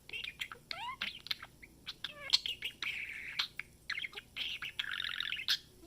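Budgerigar chattering and warbling: a rapid run of short chirps and clicks, with two longer buzzy, rattling warbles, one midway and one near the end.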